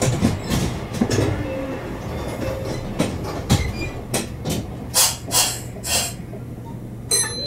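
Meitetsu electric train heard from inside the car as it runs, with a steady low hum and wheels clacking over rail joints, several sharp clacks about half a second apart in the second half. A short high chime sounds near the end.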